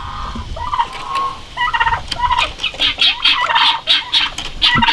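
A flock of turkeys and chickens calling, many short overlapping calls that grow busier from about a second and a half in.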